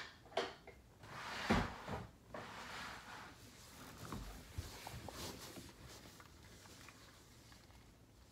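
Handling noise: a sharp knock near the start, then rustling and soft bumps as a person shifts about and handles rubber balloons, with a few small clicks later on.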